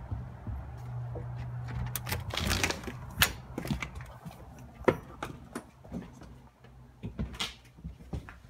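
A door being opened and someone stepping inside onto a hard floor: a string of sharp clicks and knocks with rustling, over a low steady hum in the first couple of seconds.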